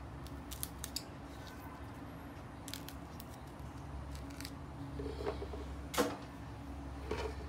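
Sugar snap pea pods being snapped at the ends and their strings pulled off by hand: scattered small crisp clicks and snaps, with a sharper tap on a wooden cutting board about six seconds in. A steady low hum runs underneath.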